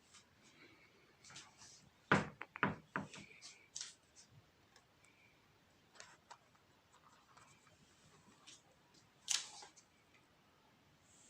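Small clicks and taps of hand work with tools and small parts, with a cluster of sharper knocks about two seconds in and one louder click near the end.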